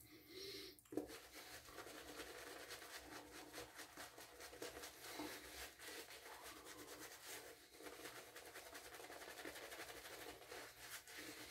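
Faint, soft swishing and crackling of a shaving brush working tallow-based shave-soap lather over the face and neck in many quick strokes, re-lathering for the final pass.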